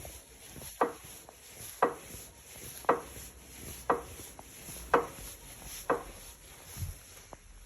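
ProForm Tour De France exercise bike crank clicking or knocking sharply about once a second as it is pedalled, a noise that is not meant to be there after a month of use. The last knock, near the end, is weaker.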